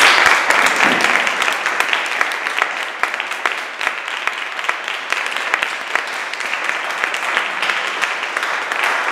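Audience applauding: many hands clapping in a dense, steady stream, loudest at the very start.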